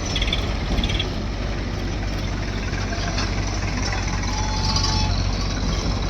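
Diesel engine of heavy earth-moving machinery, a backhoe loader or tractor at a soil-loading site, running steadily with an even low drone.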